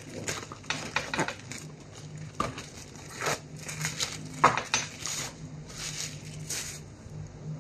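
Plastic cling wrap crinkling and crackling in irregular bursts as it is peeled off a bundle of long beans, over a low steady hum.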